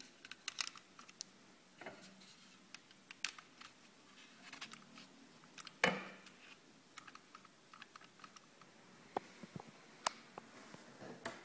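AUTOart Pagani Zonda R model car being handled: irregular light clicks and taps of plastic and metal parts, with a couple of louder knocks about six and ten seconds in.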